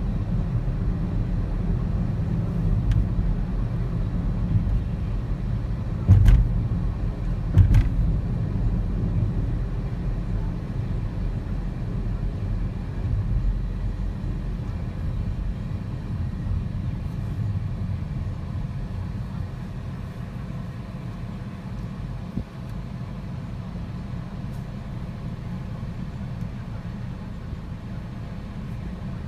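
Steady low rumble of a moving car, with two sharp knocks about six and eight seconds in; the rumble eases a little in the second half.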